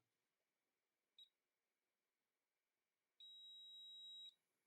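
Faint multimeter continuity beep: a short chirp about a second in, then a steady high-pitched tone held for about a second near the end, the sign of the probes finding a closed connection while the charger cable's conductors are checked for which is negative and which positive.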